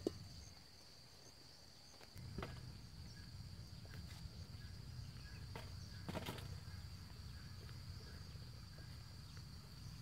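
Insects chirring in a steady, high-pitched drone over faint outdoor ambience, with a low rumble that comes in about two seconds in and a couple of faint clicks.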